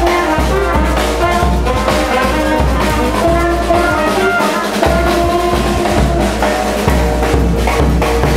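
A small brass street band playing live: saxophones and a trumpet carry the tune over a steady beat from a bass drum and snare drum. The bass drum drops out for a couple of seconds midway, then comes back in.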